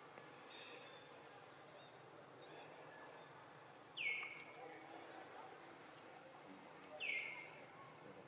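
Outdoor ambience of faint insects and birds. A short, high call sliding down in pitch comes twice, about three seconds apart.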